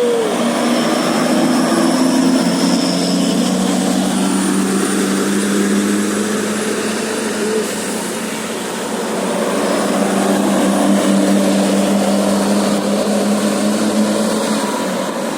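Large bus engine running close by, a steady low drone over road and traffic noise that eases off near the end.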